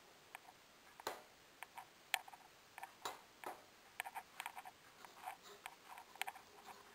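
Faint, irregular crackling and popping of ground meat, onion and garlic frying in a hot pot, with a few sharper pops.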